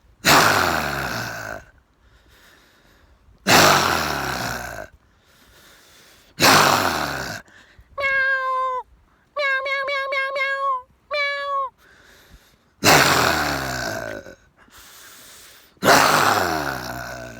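A human voice doing animal-like calls: five loud, raspy, deep roars about three seconds apart. Between them, around the middle, comes a run of clear, high-pitched meow-like calls, some in a quick stuttering series.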